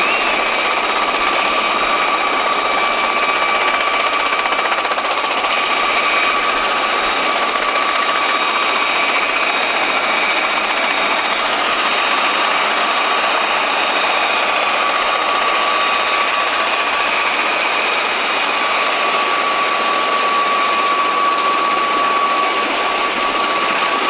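MV-22 Osprey tiltrotor running on the ground with its nacelles upright: the twin turboshaft engines and spinning proprotors make a loud, steady rush with a high whine held on a few steady tones.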